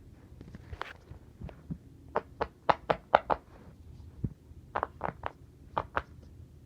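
A string of short, sharp pops, about fifteen in irregular clusters, loudest in a quick run between two and three and a half seconds in, over a low background hum.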